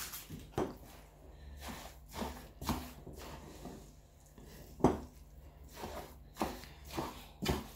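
A spoon stirring and tossing shredded abacha in a grey non-stick pot, knocking and scraping against the pot about a dozen times at an uneven pace, a little over once a second, some strokes louder than others.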